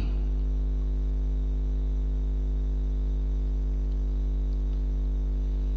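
Steady electrical mains hum, strongest at its low fundamental, with a ladder of evenly spaced higher overtones and a faint hiss. It holds unchanged at one level throughout.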